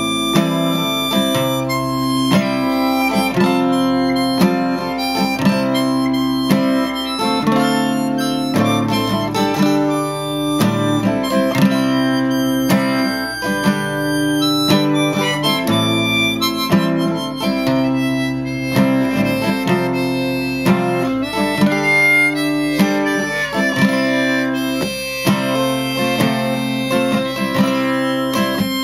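Acoustic guitar strummed in steady chords while a harmonica played from a neck rack carries the melody in long held notes, with no singing.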